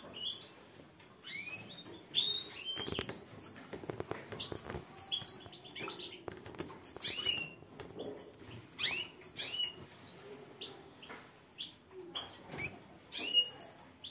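Canaries chirping and singing in short phrases: quick upward and downward sweeping notes and a fast trill of repeated notes, broken by short pauses, with a few light clicks.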